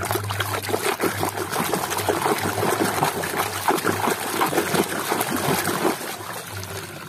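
Muddy water sloshing and splashing in a plastic basin as a hand scrubs a toy car beneath the surface: irregular churning splashes, a little quieter near the end.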